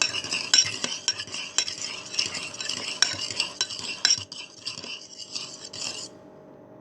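Fork stirring beaten eggs in a bowl: a quick, continuous scraping clatter of the tines against the bowl that stops about six seconds in.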